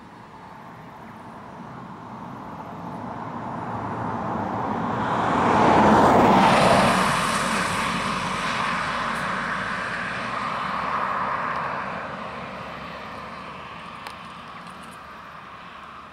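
A vehicle passing by: a swell of noise that builds for several seconds, peaks about six seconds in, then slowly fades, with a smaller second swell a few seconds later.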